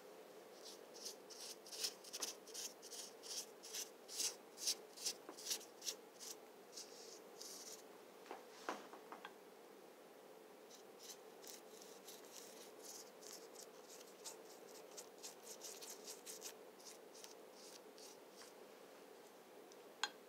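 Paintbrush brushing white paint onto a moulded pedestal: quick, scratchy strokes about two a second, in two spells with a pause in the middle, then a single sharp click near the end.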